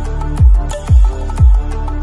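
Background music: a steady bass and held synth notes, with three deep bass hits about half a second apart, each sliding down in pitch.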